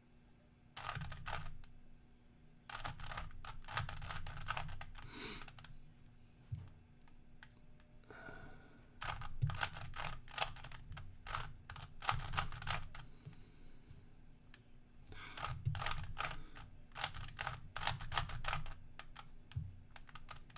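Rubik's cube being twisted by hand: quick runs of plastic clicks and rattles as the layers turn, in four bursts with short pauses between.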